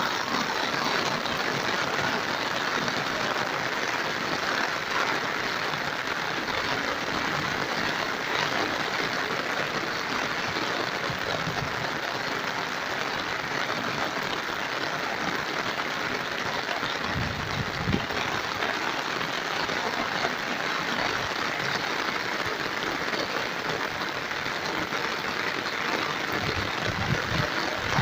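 Heavy rain pouring down, a steady dense hiss, with a few brief low thumps.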